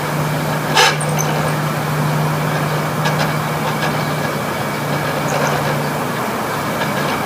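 Room air conditioner running with a steady compressor hum under loud fan noise, the fan blades sloshing through water, with one brief sharp rush about a second in and a few faint ticks later. The owner takes it for a catastrophic failure with the compressor in overload.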